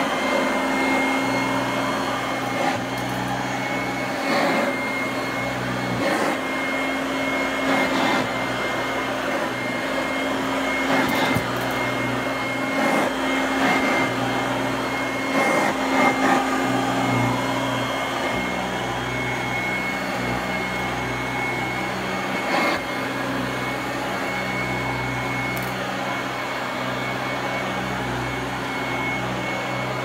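Fakir 350 softbag upright vacuum cleaner running, with a steady motor hum and a constant high whine, as it is pushed back and forth over carpet. Short knocks come every few seconds as the head hops along the thick pile carpet, its strong suction making it stick.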